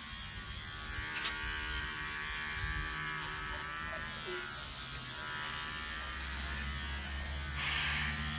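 Electric hair clippers running with a steady buzz as they cut a head of hair short. There is a short click about a second in and a louder hiss near the end.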